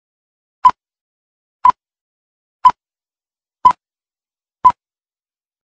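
Film-leader countdown beeps: five short, sharp beeps at one steady pitch, evenly spaced about a second apart.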